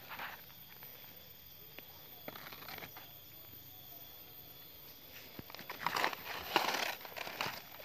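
Leaves and undergrowth rustling and crackling as they are handled and pushed through: a few faint snaps at first, then a loud run of rustling in the last couple of seconds.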